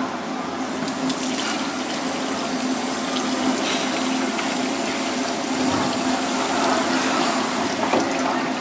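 Tap water running into a stainless steel bowl and splashing as gloved hands rinse and rub pieces of red spotted grouper, with a few light knocks and a steady low hum underneath.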